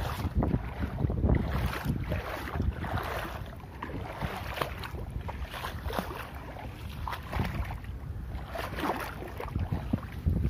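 Wind buffeting the microphone with an uneven low rumble, mixed with irregular rustling and handling noises.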